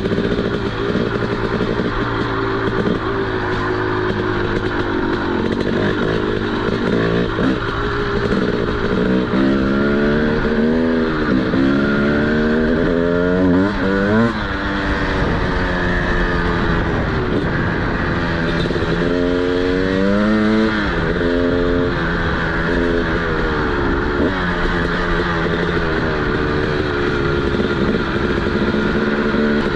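TM SMR 300 supermoto's single-cylinder two-stroke engine with a DBR exhaust, under way. The revs rise and fall again and again as it pulls through the gears and rolls off, with a brief sharp crack about fourteen seconds in.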